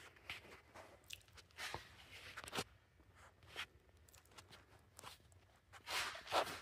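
Faint scattered clicks and rustles of hands handling the plastic handlebar and controls of a cordless electric lawn mower, with a few slightly louder clicks. The mower's motor is not running.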